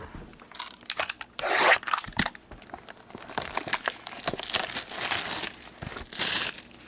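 Clear plastic shrink-wrap being torn and pulled off a sealed box of trading cards, crinkling and ripping in irregular rasps, loudest about two seconds in and again near the end.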